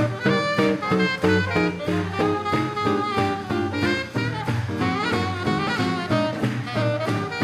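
Live swing jazz band playing an instrumental passage: saxophone and brass melody over a steady beat from double bass and rhythm section.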